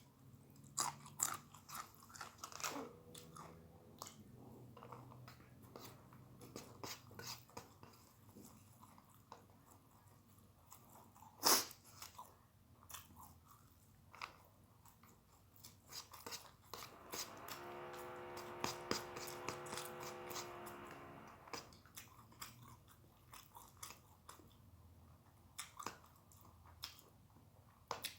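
Close-up chewing and crunching of food: a string of crisp bites and mouth clicks, with one louder crunch about a third of the way in, typical of biting raw yardlong beans. Midway a steady pitched hum sounds for about four seconds.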